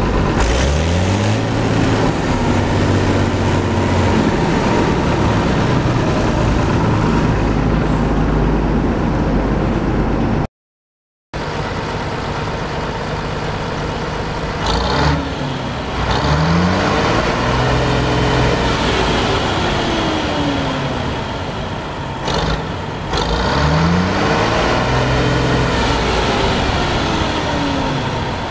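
A combine harvester's diesel engine running loud and steady after a quick rise in revs. After a short break, a Bizon Rekord Z058 combine's diesel engine is revved up and down several times, each rise and fall taking a few seconds.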